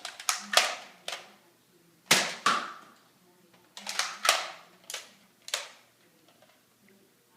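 Nerf Strongarm dart blaster being primed and fired: a series of sharp plastic snaps and clacks, several in quick pairs, over the first six seconds.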